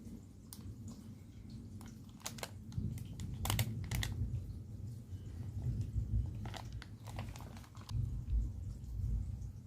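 A person chewing and biting food, with a few short crisp crunches over a low rumble of mouth and handling noise.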